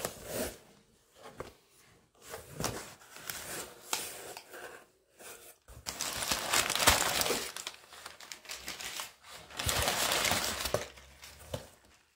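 Crumpled kraft paper packing fill crinkling and rustling in irregular bursts as hands push it aside inside a cardboard shipping box, with the cardboard flaps being handled. The loudest stretches come about six seconds in and again about ten seconds in.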